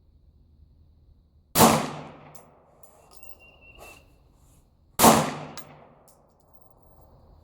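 Two pistol shots from a Glock 43 9mm subcompact, about three and a half seconds apart, each a sharp crack with an echo trailing off.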